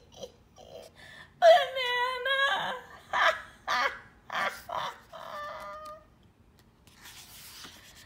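A woman voicing a cartoon elephant's laughter: one long drawn-out laugh, then a run of short cackling 'ha!' bursts. A book page rustles as it is turned near the end.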